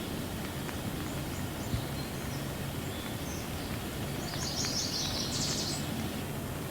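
Steady rain falling, with a bird chirping: a few faint chirps early on, then a quick run of high chirps about two-thirds of the way through.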